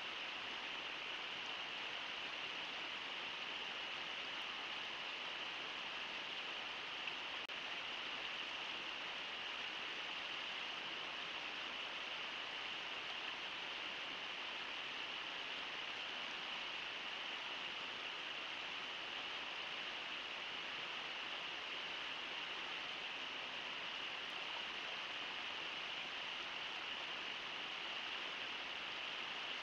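Steady rushing of river water, an even hiss with no splashes.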